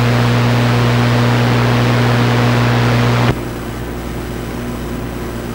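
CB radio receiving static: a steady hum over loud hiss, which cuts off abruptly about three seconds in. Quieter band static follows.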